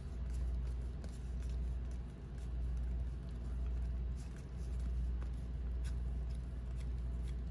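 A steady low hum, with faint scattered clicks of trading cards being flipped through by hand.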